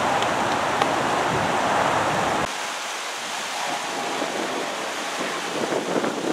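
Steady outdoor rushing noise of wind on the microphone. It is fuller and louder for the first two and a half seconds, then drops suddenly to a lighter, thinner rush.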